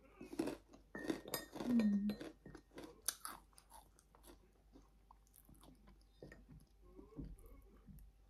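Close-up crunching and chewing of puffed fish crackers. The crisp crunches are loudest over the first three seconds, then give way to quieter chewing.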